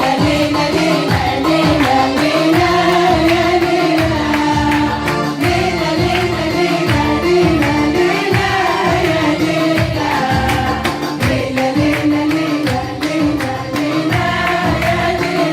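A group of women singing a melody together in unison, over a steady drum beat.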